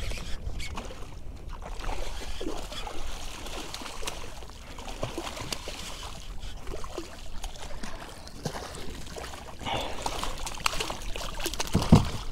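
Hooked redfish thrashing and splashing at the surface as it is reeled in, with water trickling and sloshing. A loud splash right beside the kayak near the end is the loudest sound.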